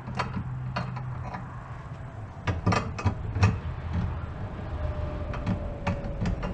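Chrome handlebar riser clicking and knocking against the chrome aluminum top clamp plate as it is pushed and worked into the ground-out riser hole in a tight test fit, a string of sharp metallic clicks over a low steady hum.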